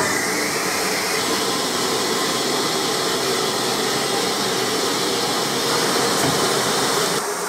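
Merchant Navy class steam locomotive 35006 hissing steam, a loud steady hiss with a faint low hum beneath. The highest part of the hiss drops away abruptly near the end.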